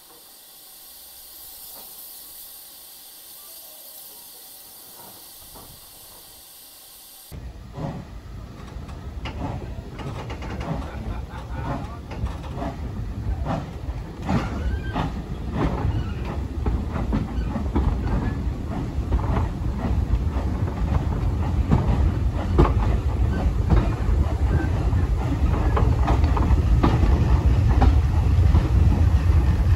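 Steam locomotive hissing steam. After a sudden cut, a train's deep rumble with rail clatter and knocks builds steadily louder as it comes closer.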